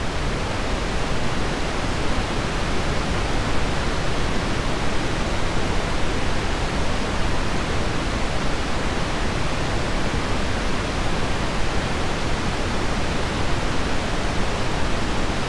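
Steady pink noise test signal from a car audio test disc's sound pressure level track, played over a sound system: an even, full-range hiss at a constant loud level.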